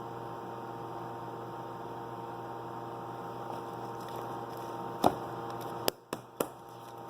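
Steady electrical hum with a few faint steady tones above it. A handful of sharp clicks or taps come about five seconds in and over the next second and a half.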